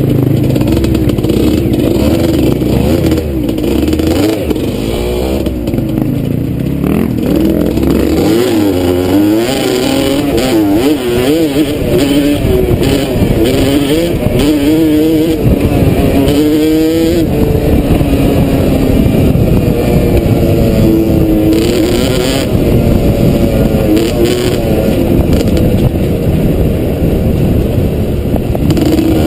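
Dirt bike engine heard from the rider's helmet, running continuously with its pitch rising and falling as the throttle opens and closes over a rough track.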